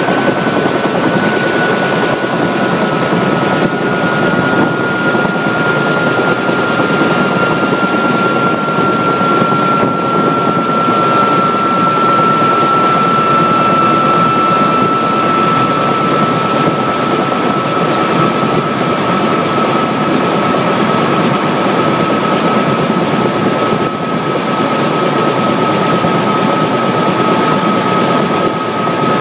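Helicopter's turbine engine and rotor running, heard from inside the cabin: a steady loud rush with a high whine that slides slowly lower in pitch.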